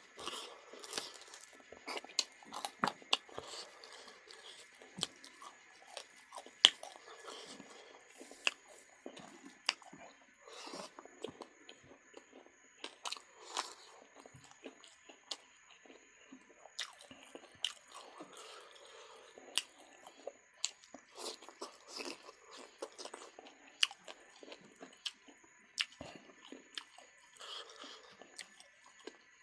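Close-up eating sounds of fried duck: steady chewing with frequent sharp crunches and bites of the crisp meat and bone.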